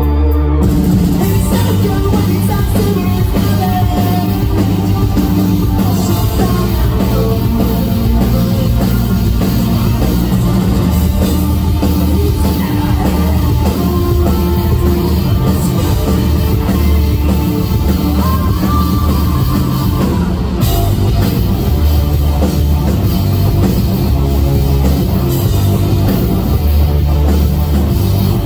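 Live rock band playing loud, with electric guitars, bass guitar and drum kit. The full band with cymbals comes in about half a second in, after a bass-heavy lead-in.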